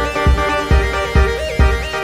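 Electronic background music: a steady thumping beat about twice a second under synthesizer chords and a short repeating melody.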